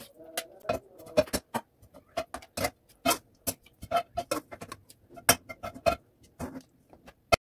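Metal slotted spoon clinking and scraping against a coated wok and a steel pot as leftover whole spices are pushed around the pan. It is a string of irregular sharp taps, some with a brief metallic ring, and it cuts off just before the end.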